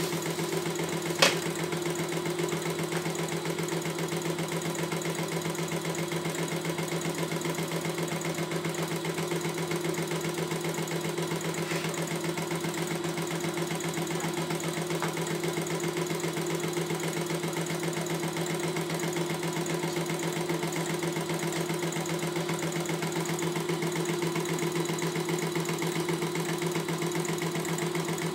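CNY E900 computerized embroidery machine stitching a design, running steadily with an even hum and rapid needle action. A single sharp click about a second in.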